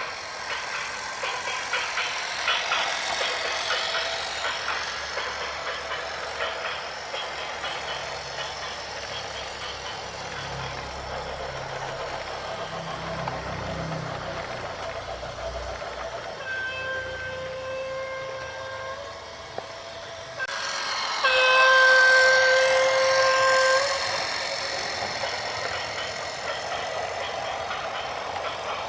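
Steady heavy-vehicle running noise with some rattling, then a vehicle horn blows two long single-note blasts past the middle, the second one louder.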